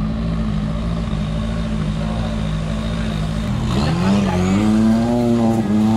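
Off-road 4x4's engine running steadily as it wades through the river. About three and a half seconds in it revs up, and its pitch then rises and falls repeatedly as the driver works the throttle to push through the water.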